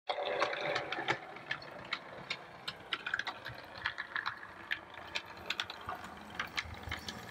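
Bare chassis of a Bachmann N Class mogul OO-gauge model locomotive running along model railway track: a light running noise with irregular sharp clicks from the wheels and mechanism.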